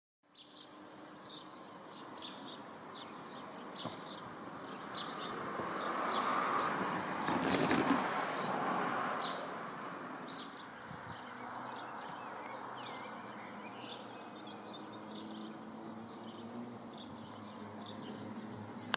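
Small birds chirping and singing repeatedly in short calls, with a rushing noise that swells and fades about six to nine seconds in.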